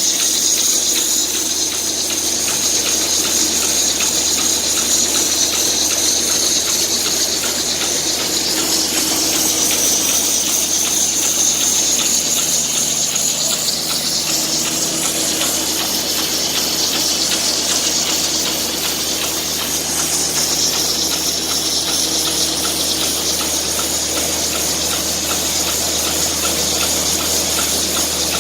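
Biomass flash dryer running: a steady rush of air and machine noise with a low hum underneath.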